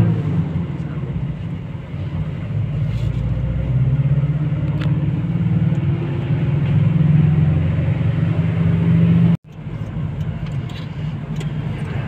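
Inside a moving car's cabin: a steady low rumble of engine and road noise. It cuts out for an instant about nine seconds in and then carries on.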